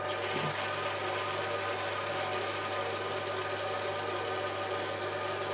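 Toilet cistern fill valve (Jollyfill) running, water hissing steadily into the cistern as it refills.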